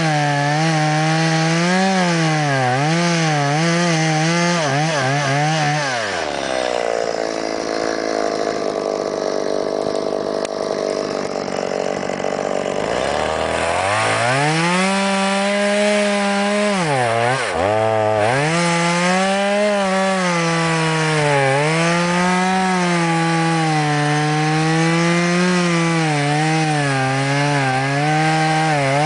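Stihl MS 170 two-stroke chainsaw cutting alder logs at high revs, its pitch wavering under load. About six seconds in it drops to idle for several seconds, then revs back up and cuts again, with a short dip in revs shortly after.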